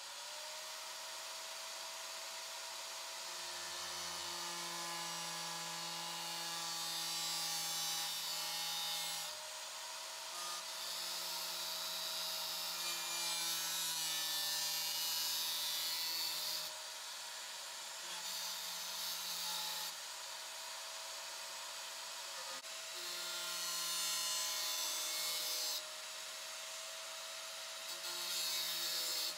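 Angle grinder with a thin slitting disc running at a steady whine, cutting slots in metal in repeated passes of a few seconds each. The grinding grows louder and hissier while the disc bites and drops back to the free-running whine between cuts.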